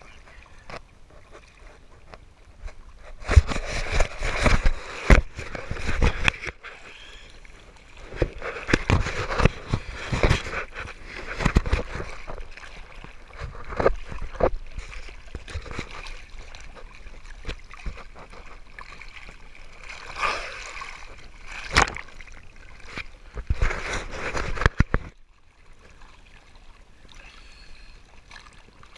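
Choppy sea water splashing and sloshing around a GoPro held at the surface, in irregular bursts as the waves slap against it, quieter for the last few seconds.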